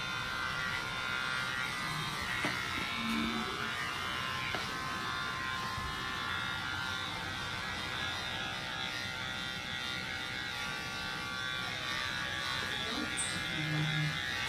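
Electric pet hair clippers running with a steady buzz as they shave a Persian cat's long coat.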